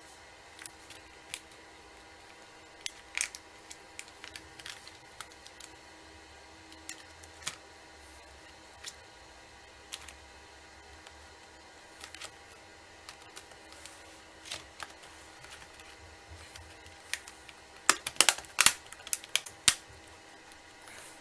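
Scattered sharp clicks and taps of small laptop parts being handled during a hard drive swap, with a quick run of louder clicks near the end.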